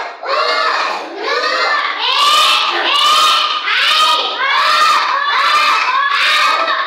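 A class of young children reading English short-i words aloud in unison in a rhythmic chant, one word a little faster than once a second, each word called out as the teacher points to it.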